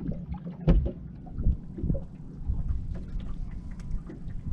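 Water slapping against the hull of a drifting fishing boat, with a low wind rumble and a few short knocks, the loudest about a second in.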